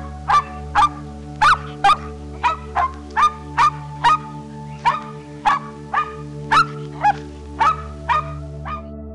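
A dog barking repeatedly, short sharp barks at about two a second, with soft background music holding a steady drone underneath.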